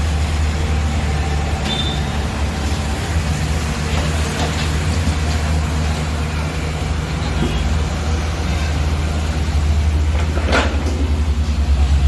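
Heavy diesel engine of earth-moving machinery running steadily. A brief high squeak comes about two seconds in, and a sharp knock about ten seconds in.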